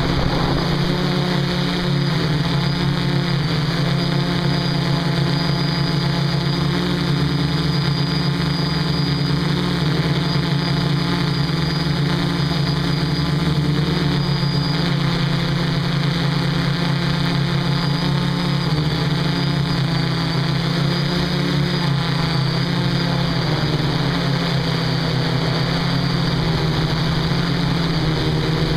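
DJI F450 quadcopter's four electric motors and propellers buzzing steadily in flight, heard close up through the camera mounted on the drone, the pitch drifting slightly up and down as the motor speeds change.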